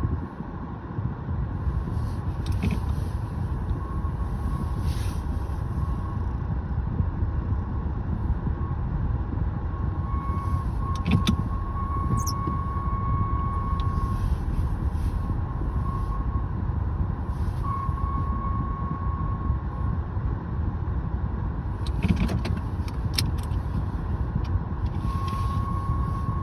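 Car noise: a steady low rumble with a thin whine that comes and goes several times, and a few sharp clicks.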